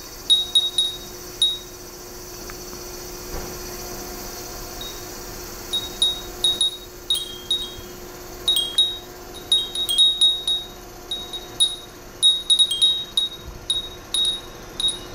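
Japanese furin wind chimes, several of them glass bells, tinkling irregularly as the breeze moves their paper strips. There are a few pings at first and a lull, then frequent clusters of high, brief rings from about six seconds in, over a faint steady hum.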